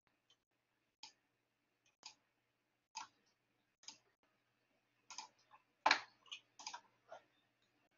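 Faint computer mouse clicks, roughly one a second at first, then several in quicker succession in the second half, the loudest about six seconds in.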